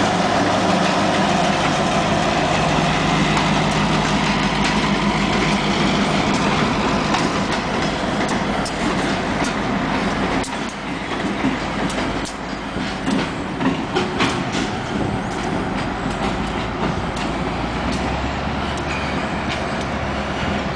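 Diesel switcher locomotive and freight cars rolling past close by on the plant's tracks, the locomotive running loudest in the first few seconds, then the cars' wheels clicking over rail joints.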